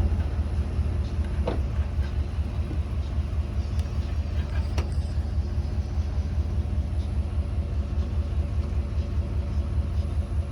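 An engine idling steadily, a low rumble with a faint pulsing beat. A couple of light clicks, about one and a half and five seconds in.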